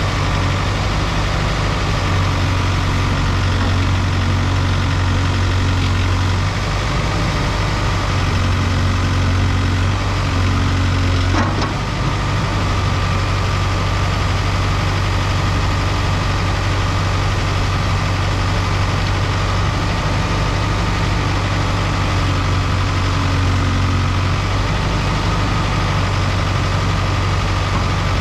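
Diesel engine of a Case 770EX-SS loader backhoe idling steadily, with a deep hum that rises and falls slightly in strength and a single brief click partway through.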